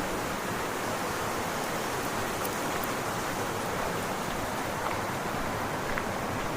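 Steady rush of falling water from a mountain waterfall cascade.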